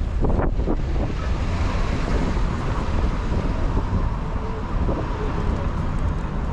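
Wind buffeting the camera microphone in a steady low rumble, over the background noise of a city street.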